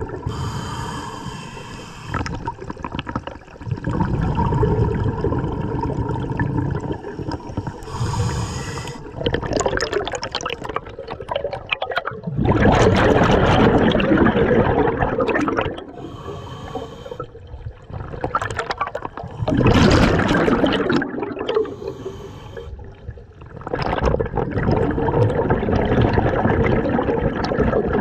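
A scuba diver breathing through a regulator underwater: a thin hiss on each slow inhale, then a long rush of exhaled bubbles, repeating about every six seconds.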